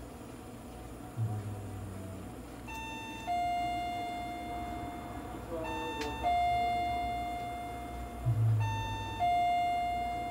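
Electronic two-tone 'ding-dong' chime, a short higher note followed by a longer lower note that fades, sounding three times about three seconds apart over steady background noise.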